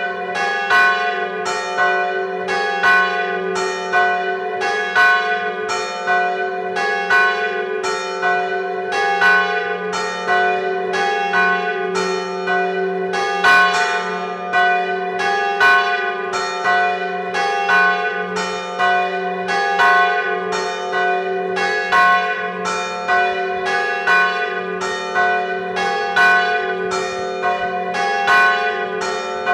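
Church bells tolling a death knell (glas). The great bell swings and strikes while the two smaller bells are struck in alternation, with a stroke about every half second over the bells' steady ringing hum.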